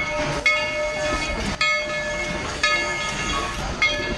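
Steam locomotive's bell ringing, one strike roughly every second, each ringing out before the next, while the train rolls slowly past.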